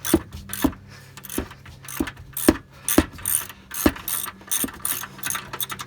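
Hand ratchet with an 18mm socket clicking in short strokes, about two a second, as it backs off the upper shock-mount nut on a Ford F-250 front shock.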